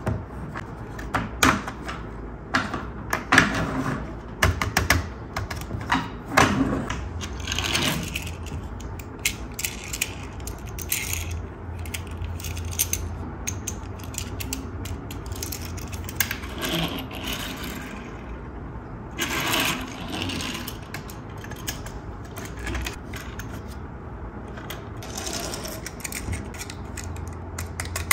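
Small die-cast toy cars and a plastic toy car-carrier truck being handled on a wooden table: irregular clicks, taps and clatters, thickest in the first eight seconds, with a few more knocks later on.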